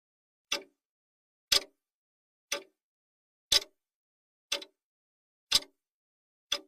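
Countdown timer's clock ticking sound: one sharp tick each second, alternating louder and softer like a tick-tock, with silence between.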